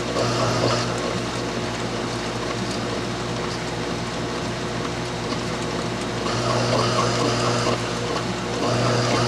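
Small metal lathe running at slow speed with a steady motor hum while a narrow parting blade cuts into the turning metal disk. The harsher cutting noise comes and goes: at the start, again about six seconds in, and near the end.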